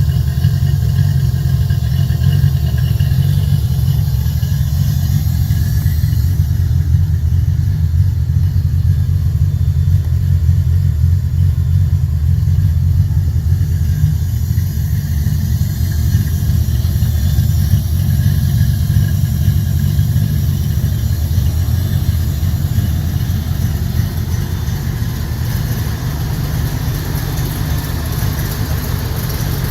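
Engine idling steadily with a deep, even low-pitched running sound, on its first start after a teardown and inspection.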